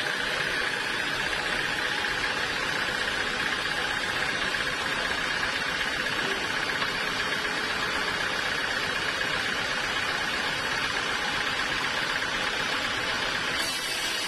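Sawmill saw running steadily: a continuous mechanical whir with a steady high whine, shifting slightly near the end.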